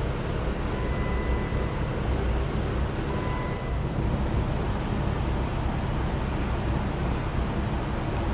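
Engine fitted with a Whipple 2.9 L supercharger and an SRT Max Plus cam idling steadily, still cold. A faint thin tone comes and goes during the first few seconds.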